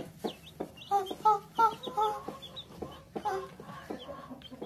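A hen giving a run of short clucks, with a newly hatched chick peeping in short, high falling notes.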